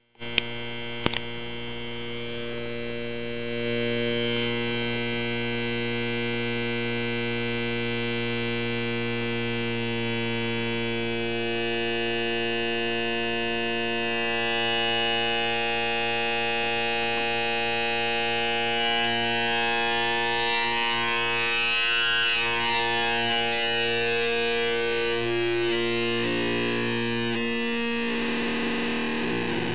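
A homemade 4093-based square-wave oscillator holds one steady, low, buzzy note through a simple TL071 op-amp voltage-controlled filter, played over a speaker. Two clicks sound in the first second. Later the cutoff and resonance knobs are turned, so the brightness changes as overtones are swept in and out.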